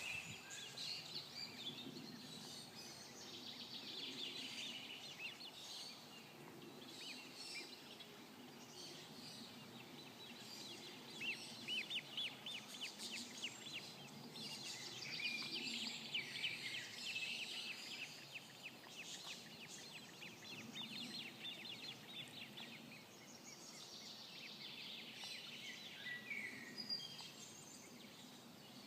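Several songbirds singing and calling, with rapid trills and chirps, over faint background noise.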